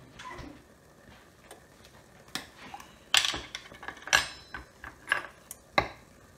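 Jar of garlic being opened and handled: a few sharp clinks and knocks with a short ring, roughly a second apart in the second half.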